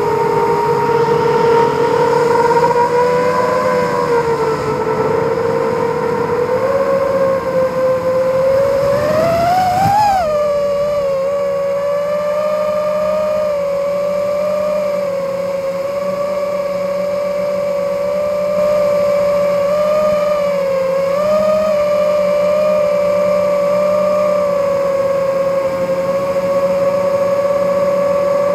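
FPV racing quadcopter's brushless motors and propellers whining steadily. The pitch climbs for a couple of seconds, falls back sharply about ten seconds in, then holds with small wobbles.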